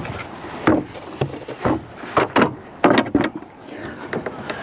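Wooden fence gate being pushed and worked shut against the fence post: a string of irregular wooden knocks and clunks, thickest in the middle.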